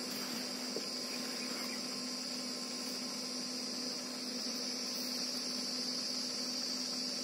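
Steady, high-pitched, unbroken drone of insects, with a low steady hum underneath.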